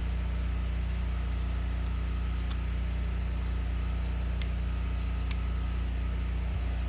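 A steady low hum with several even overtones fills the room. A few faint sharp clicks, small metal carburetor parts being handled, come about two and a half, four and a half and five seconds in.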